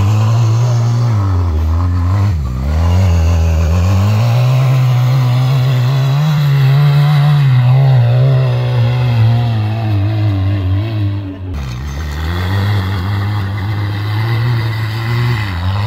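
Quad bike (ATV) engine running and revving, its pitch rising and falling as the throttle is opened and closed, with a brief drop in level about eleven and a half seconds in.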